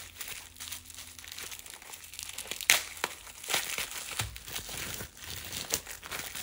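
Packaging crinkling and crackling in irregular bursts as a nail polish bottle is unwrapped, with one sharper snap near the middle.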